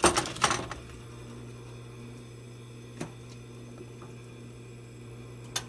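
Aluminium foil lining a baking pan crinkling and rattling as the pan is handled, briefly in the first second. Then a steady low hum with two single light clicks, one midway and one near the end.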